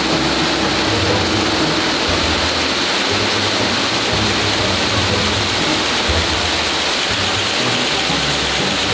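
Steady, dense hiss and hum of plastic bottle-cap production machinery running on the factory floor, with low bass notes of background music underneath.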